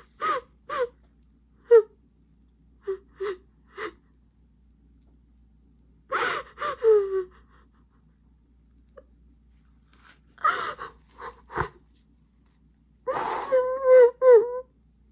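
A person's voice in short, breathy bursts and gasps, coming in four clusters with pauses between them.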